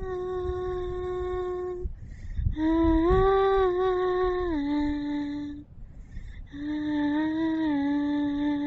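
A person humming three long phrases of held notes, sliding smoothly from one pitch to the next, over a low rumble of wind on the microphone.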